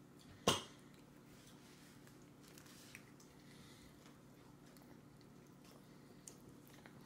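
Baby chewing and eating soft food with her fingers: one sharp smack about half a second in, then faint small mouth and finger clicks over a low steady hum.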